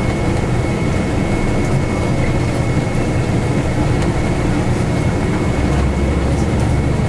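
Bus driving, heard from inside the passenger cabin: a steady low engine and road rumble with a faint, steady high whine above it.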